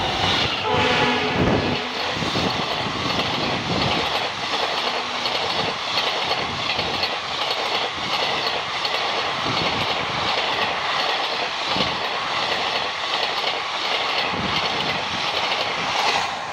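Express train hauled by an electric locomotive running through the station at speed close by. A short horn blast sounds as the locomotive arrives, then the coaches rush past with a steady clatter of wheels over the rail joints. The sound drops off sharply as the last coach clears near the end.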